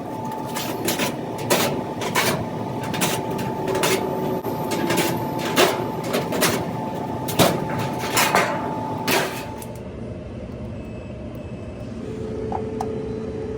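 A run of sharp clicks and metallic knocks, about one every half second to a second, as the back panel of a Whirlpool dryer is taken off, over a steady whine. Both stop about ten seconds in.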